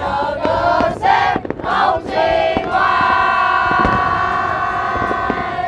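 A large crowd cheering and shouting, its voices merging into one long held shout lasting about three seconds from halfway in. The pops and bangs of aerial fireworks sound through it.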